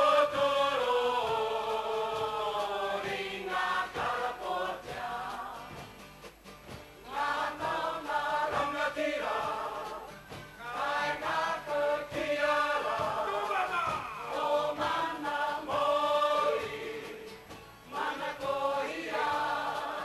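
Māori kapa haka group of women and men singing together in unison, a choral song in phrases of a few seconds with brief pauses for breath between them.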